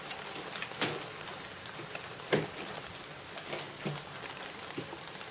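Light rain pattering on surfaces, heard as a steady crackle of scattered drops, with a couple of louder knocks about a second in and a little after two seconds.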